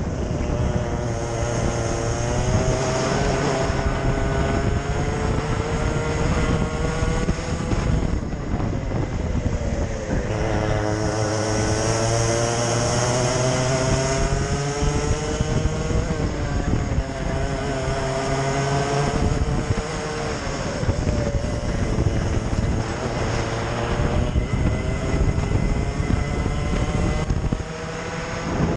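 A racing kart's two-stroke engine heard from onboard at race pace. Its pitch climbs along each straight and drops off sharply into the corners, about four times.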